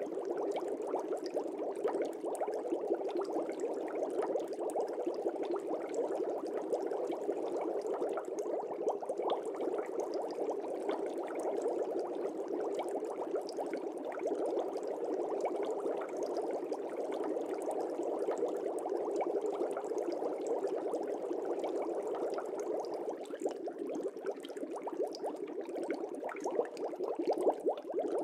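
Fish tank air bubbles rising and breaking at the water surface: a steady, continuous bubbling made of a dense stream of small pops.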